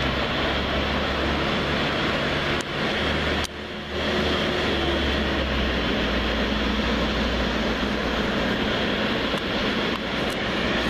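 Jet engines of a large twin-engine airliner taxiing at low thrust: a steady rushing noise over a low hum, with a brief drop-out about three and a half seconds in.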